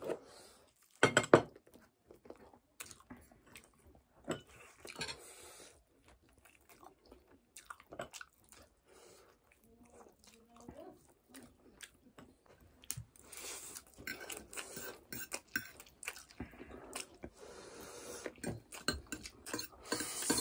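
Close-up eating sounds: chewing on sauced chicken wings, with sharp clinks of forks and spoons on ceramic plates and a bowl, loudest about a second in. From about two-thirds of the way through the eating noise grows denser, ending with noodles being slurped off a fork.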